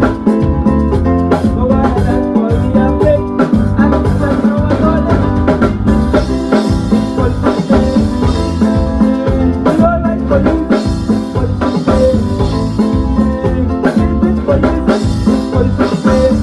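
Loud music with a drum kit keeping a steady beat and guitar, possibly with some singing.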